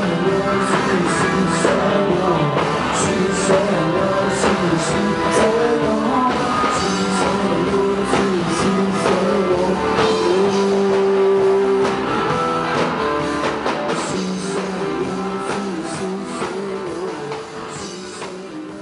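A live band playing a song with guitar and drum kit, a lead melody wandering over a steady bass. From about twelve seconds in, the music slowly fades out.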